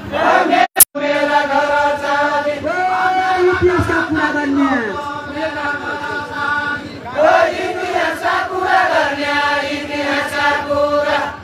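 Men's voices singing a far-western Nepali Deuda folk song in a slow, chant-like melody of long held, gliding notes. About a second in, the sound briefly drops out and there is one sharp click.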